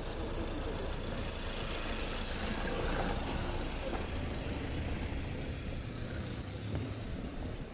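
Steady outdoor street-market background: an even low rumble with faint, indistinct voices around the middle.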